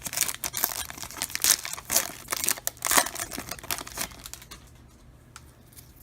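Foil trading-card pack being torn open and crinkled by hand, a dense run of crackles that stops about four and a half seconds in.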